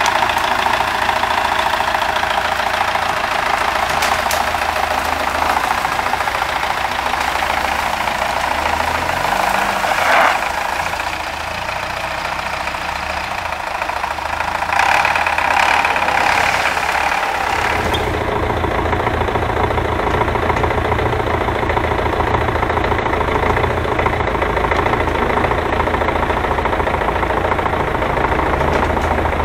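MTZ tractor's four-cylinder diesel engine running as it tows a car out of a ditch on an icy road. The sound carries on steadily, with a heavier low rumble in the last third.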